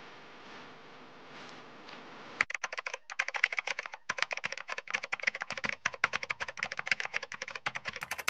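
Computer keyboard typing sound effect: rapid, irregular key clicks starting about two and a half seconds in, after a faint hiss.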